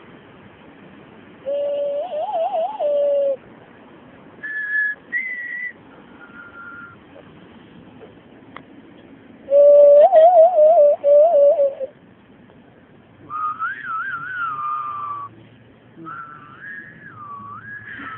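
Hand whistle blown through cupped hands, making breathy, hollow hooting notes in short phrases. Two loud, low phrases with a wobbling pitch come about two seconds in and again near ten seconds. Between and after them come higher, fainter notes and sliding glides.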